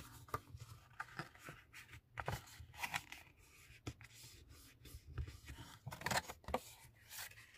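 Patterned cardstock being folded along its score lines and creased with a bone folder: irregular rustling and scraping strokes of paper being handled, a few of them louder around two seconds in and near six seconds.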